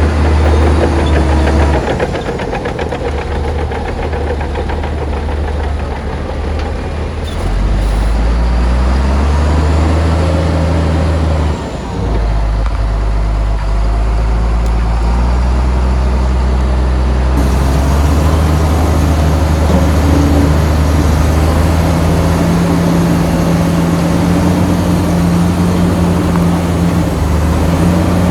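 Heavy diesel engine of earthmoving machinery running under load. The engine note rises about a third of the way in, dips briefly just before halfway, then holds steady.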